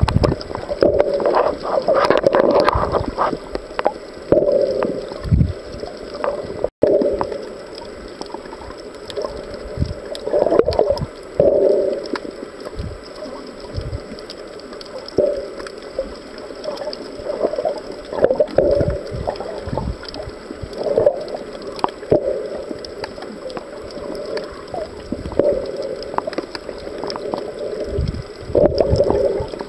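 Muffled water noise heard underwater, sloshing and gurgling in irregular surges every second or two, with a brief cut-out about seven seconds in.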